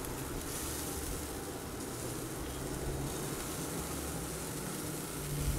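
Steady low hum with a faint even hiss from a running Traeger pellet grill, as chicken pieces are turned over on its hot grate.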